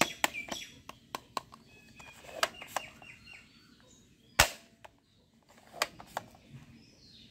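Plastic toy gun being handled and fired: a run of sharp clicks, with one loud shot about four and a half seconds in. Birds chirp in the background.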